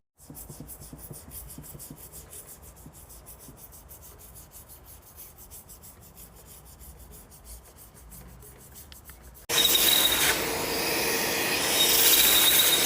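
Fast, even scrubbing strokes on the steel cutter block of a planer thicknesser as resin residue is cleaned from the cutter seats. For the last three seconds or so a much louder steady hiss with a thin whistle takes over.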